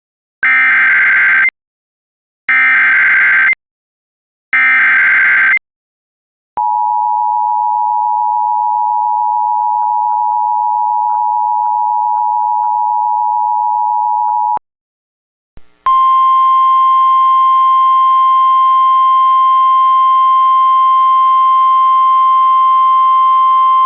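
Emergency Alert System signals. First come three one-second bursts of SAME header data, a harsh digital warble. Then the two-tone attention signal sounds steadily for about eight seconds. After a short gap, a single steady alert tone with a buzzy, hissy edge begins, the weather-radio warning alarm tone.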